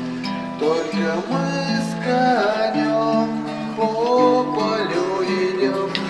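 Acoustic guitar music between sung verses: held chords underneath, with a melody line that slides between notes above them.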